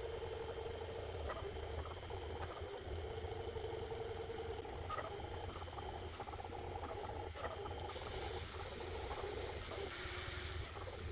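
3D printer printing: a steady hum from its fans, with the stepper motors' whine coming and going and changing pitch as the print head moves, and a few light clicks.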